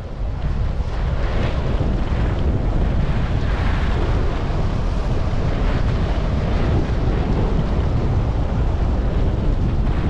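Wind buffeting a GoPro HERO10's microphone during a downhill ski run, a steady low rumble. Over it, the hiss of skis on snow swells and fades with each turn.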